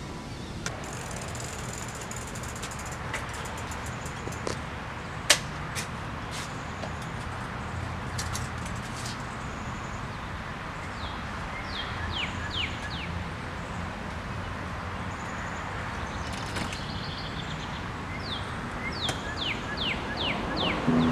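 Outdoor ambience with a steady low hum and birds chirping, in short runs of quick descending chirps about halfway through and again near the end. A few sharp clicks and knocks as a bicycle is wheeled up and parked, the loudest about five seconds in.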